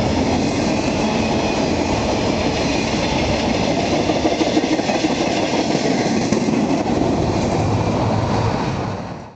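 Empty intermodal freight cars rolling past at speed: a steady rumble and clatter of steel wheels on rail. It dies away near the end as the last car goes by.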